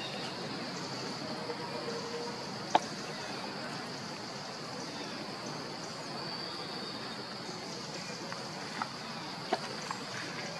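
Steady outdoor background hiss with a constant high-pitched insect drone, broken by a single sharp click a little under three seconds in and a few faint ticks near the end.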